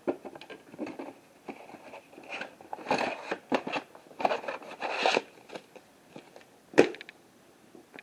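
Rummaging and handling things: irregular scrapes, rustles and knocks of objects being moved about, with one sharp knock near the end.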